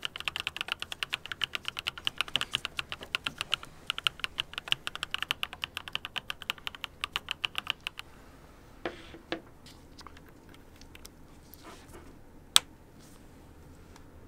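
Fast typing on a mechanical keyboard with a clear acrylic case: a rapid, dense run of key clacks that stops about eight seconds in. A few scattered clicks follow, and one sharp click near the end.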